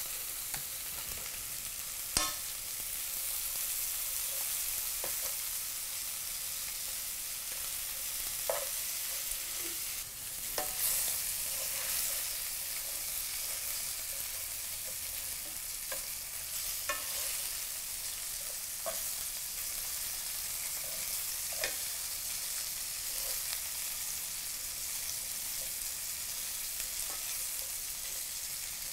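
Shrimp sizzling as they fry in butter in a nonstick pan. Metal tongs click against the pan every few seconds as the shrimp are turned.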